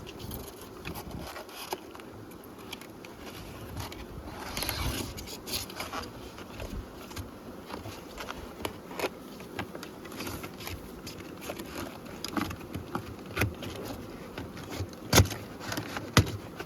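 Honeybees buzzing steadily around the hives, with scattered clicks and taps from corrugated plastic nuc boxes being folded, and two sharp knocks near the end.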